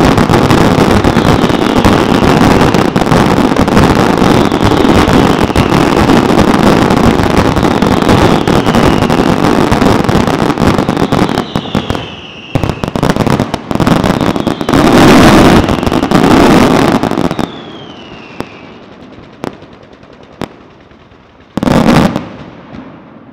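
Aerial fireworks finale: a dense, continuous barrage of bangs and crackles with falling whistles every second or two. The barrage thins out about halfway through, swells into one last loud flurry, then gives way to a few single bangs and a final loud boom near the end.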